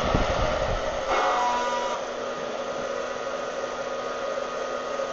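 Wear-Ever Popcorn Pumper hot-air popper running steadily, its fan blowing hot air through green coffee beans early in the roast, before first crack. A low rumble fades out about a second in.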